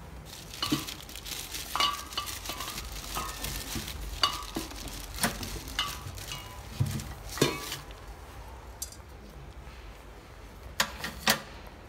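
A metal spatula clinks and scrapes against a steel wok as beef and okra are stir-fried, in irregular strikes that ring briefly. A steady sizzle runs underneath. Near the end, after a quieter spell, come two sharp knocks.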